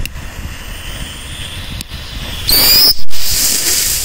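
A lit firework fuse hissing, then about two and a half seconds in a small firework rocket motor ignites with a loud rushing hiss and a high whistle.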